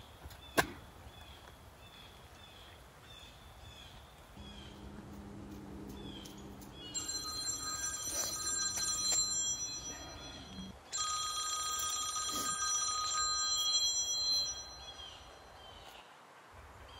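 Mobile phone ringing: a ringtone plays twice, each ring lasting about four seconds, starting about seven seconds in.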